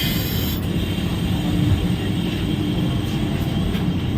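Steady low rumble of the Vande Bharat Express running, heard inside the coach, with a brief hiss near the start.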